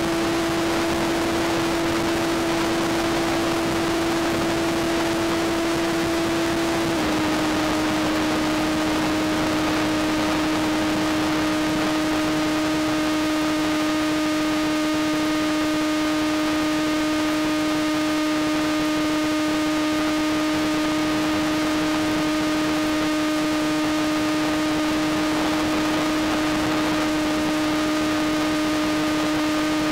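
Electric motor and propeller of an RC pusher glider (HiMax 2000kv brushless motor, APC 5.5x4.5 prop) running at cruise throttle, a steady whine over a constant hiss. The whine drops slightly in pitch about seven seconds in as the throttle is eased back.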